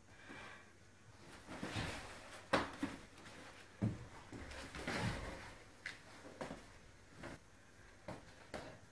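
Light boxing sparring: scattered dull thumps of gloves landing and feet stepping on a tiled floor, with rustling of clothing and gloves between them. The sharpest knocks come about two and a half seconds in and just before four seconds.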